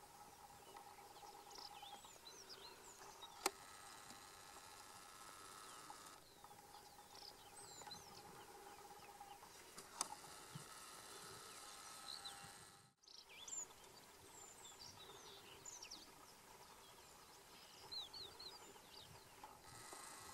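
Faint outdoor ambience: scattered small bird chirps over a steady low hum, with a sharp click about three and a half seconds in and another about ten seconds in.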